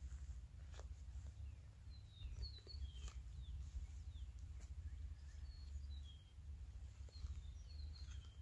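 A titanium trowel on a short wooden handle chopping into wet clay soil, a few separate strikes. Small birds chirp in the background over a low steady rumble.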